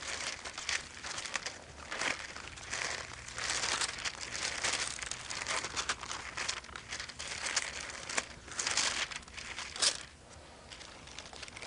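Thin Bible pages being turned and leafed through: a run of irregular papery rustles and flicks, with a sharper flick near the end and quieter rustling after.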